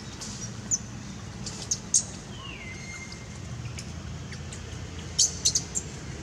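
Short, high chirps in a few quick clusters, with one whistled call that slides down and then holds about two and a half seconds in, over a low steady rumble.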